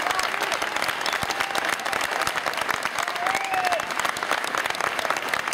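A live concert audience applauding, with a few voices calling out over the clapping, as the song ends.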